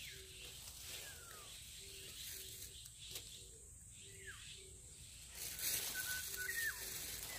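Forest birds calling: a few whistled notes that slide down in pitch, over a low short note repeated about twice a second. Some rustling comes in over the last couple of seconds.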